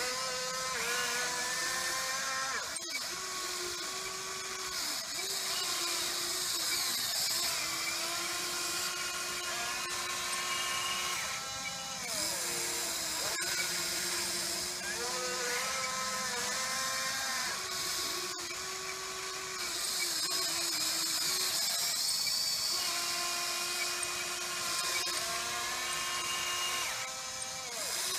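Huina 580 RC excavator's motors whining in short runs as the boom and arm are worked, each run starting and stopping with pitch that steps up and down as the functions change.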